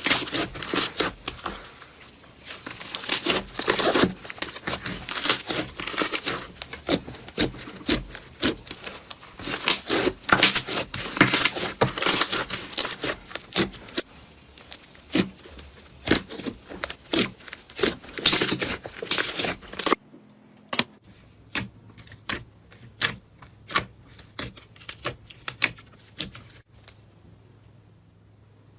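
Slime being squeezed and pressed by hand, giving dense clusters of crisp crackles and pops. About twenty seconds in the sound changes abruptly to sparser, separate pops over a quieter background.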